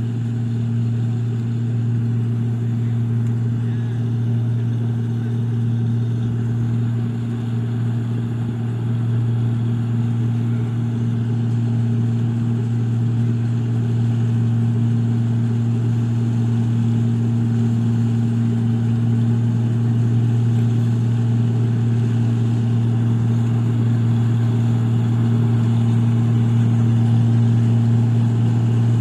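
Engine of a rice paddy machine running steadily under load, a low even drone that grows slightly louder toward the end.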